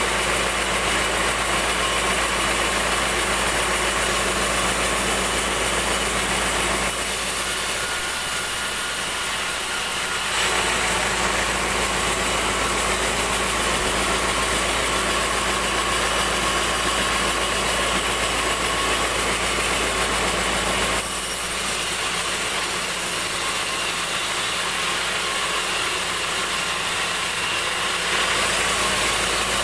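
Log band sawmill running, a steady machine drone with a few fixed tones. Its sound shifts twice, thinning in the low end for a few seconds about a quarter of the way in and again for several seconds from about two-thirds through until near the end.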